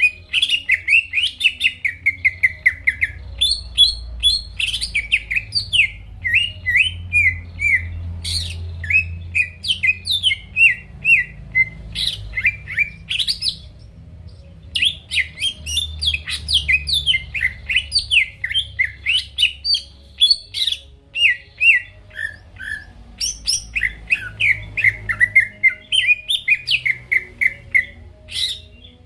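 A cucak ijo (greater green leafbird) in full song: a long, fast string of sharp chirping and sweeping notes with a short break about halfway through.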